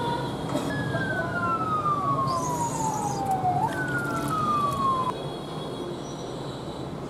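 Water sloshing and splashing as hands scrub a skinned rat carcass in a plastic basin. Over it, two long whistling tones each slide steadily downward in pitch, the first lasting about three seconds and the second starting just after it ends.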